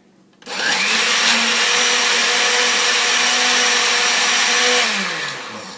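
Countertop blender motor blending a drink of banana, almonds, milk and syrup: it starts about half a second in, runs steadily, then is switched off near the end and winds down with a falling pitch.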